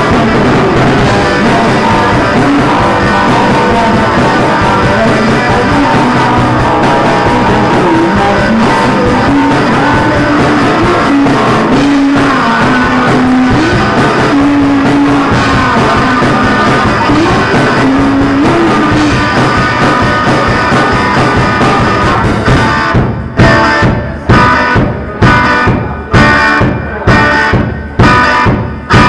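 Live rock band with electric guitar and electric bass playing a song. Near the end the band switches to loud unison hits about once a second, each one dying away before the next.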